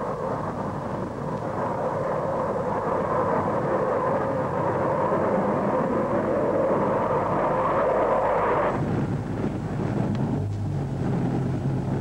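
Jet engine noise from the Buran analog aircraft's four turbojet engines in flight, a steady rushing sound. At about nine seconds it drops away and a steady low hum takes over.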